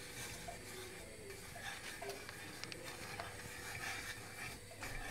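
A hand whisk stirring a thin cocoa-and-milk sauce in a stainless steel pot, faint, with soft scraping and a few light clicks against the pot.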